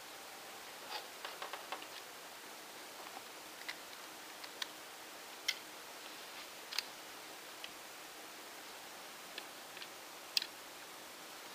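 Scattered light clicks and small plastic rattles over a steady hiss, some in quick little clusters: the Lego brick rifle being handled.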